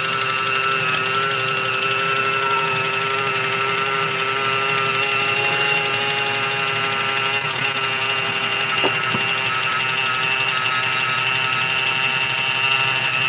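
Hands-free electric can opener running on top of a bean can, cutting around the lid with a steady motor whine.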